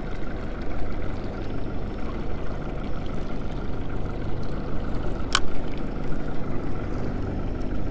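Water lapping and sloshing against the side of a small boat over a steady low rumble, with one sharp click about five seconds in.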